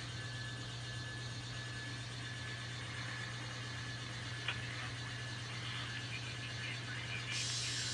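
Sound-equipped N scale model locomotive running as the train backs in: a steady low hum with a faint high whine. There is a single click about halfway through, and a hiss starts near the end.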